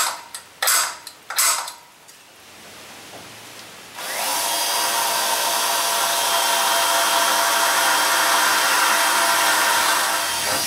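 Electric drill with a dulling 1/8-inch bit boring a pilot hole through the steel truck frame, running steadily for about six seconds from about four seconds in and stopping abruptly. A few short handling noises come in the first couple of seconds.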